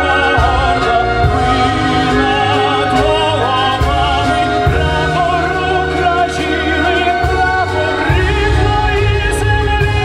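Music: a song with a wavering singing voice over a steady bass line and backing instruments.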